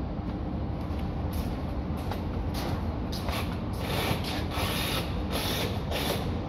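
Work boots stepping across a concrete floor, about two steps a second, with a tool belt and hammer rattling at each step, over a steady low rumble.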